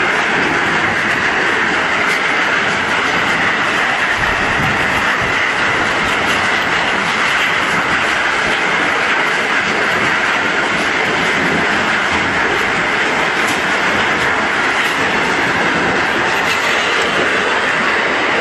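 Scrap steel crusher running and breaking up scrap metal, a loud, steady, dense clatter of metal pieces being struck and tumbled, with no break.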